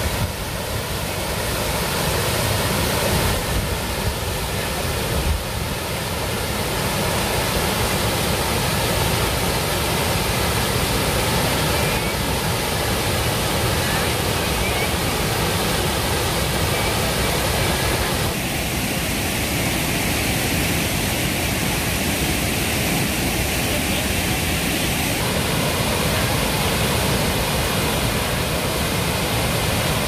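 Waterfall running, a loud steady rush of falling water.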